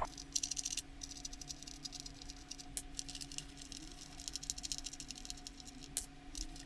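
Small metal bolts and nuts clicking and rattling against a hard plastic tricycle seat as gloved hands take them out, in quick irregular ticks, over a faint steady hum.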